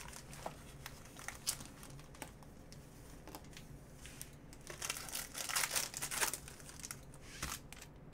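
Foil wrappers of 2019 Panini Prizm baseball hobby packs crinkling as the packs are handled, with a denser run of tearing and crinkling about five seconds in as a pack is ripped open.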